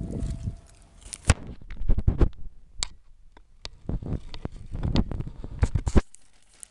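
Close handling noise: irregular clicks and knocks mixed with low rumbling thumps, stopping abruptly about six seconds in.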